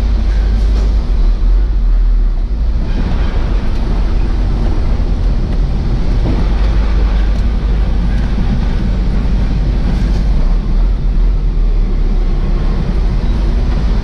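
Truck diesel engine running with a steady low rumble.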